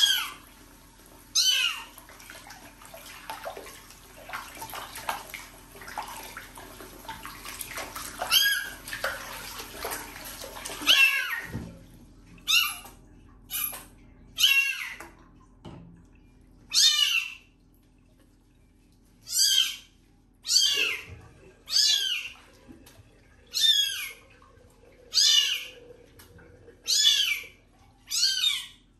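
A very young kitten meowing again and again in high-pitched cries while being washed. Tap water runs into the sink for roughly the first eleven seconds, then stops, and the meows come about every second and a half.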